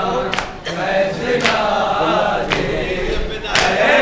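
Men's chorus chanting a noha (Shia lament) in unison, with sharp matam strikes, hands slapped on chests, about once a second.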